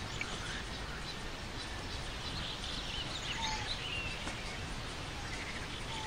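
Woodland ambience: a steady rushing background with scattered short bird chirps.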